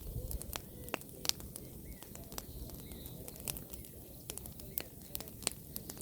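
Pruned apple branches burning in a bonfire, crackling with irregular sharp pops, a few to several a second, over a low rumble.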